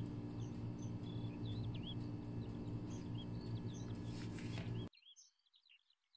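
Small birds chirping, with short calls that dip and sweep in pitch, over a steady low hum. The hum cuts off abruptly about five seconds in, and the chirps carry on more faintly.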